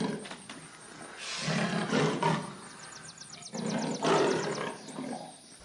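Leopard calling: three drawn-out, hoarse roaring calls in a row, each about a second long.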